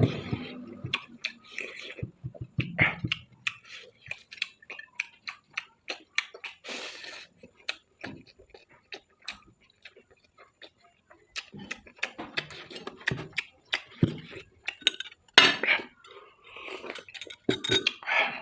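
Close-up eating sounds: a spoon clinking and scraping on a plate, with chewing, making irregular sharp clicks throughout; the loudest click comes about fifteen seconds in.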